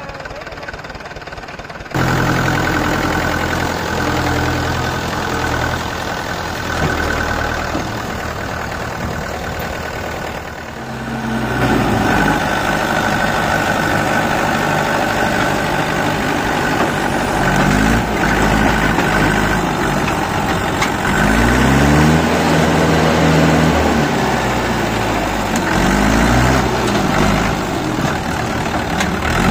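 Tractor diesel engine running steadily, with the sound stepping up abruptly about two seconds in; in the second half the revs rise and fall again and again.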